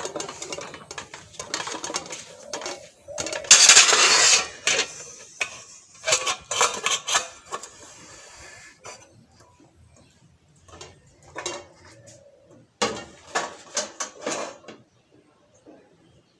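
Stainless-steel bowls, plates and lids clattering and clinking against each other as they are picked up and carried, with a loud clatter about four seconds in and more clinking in short clusters near the end as they are set down on a shelf.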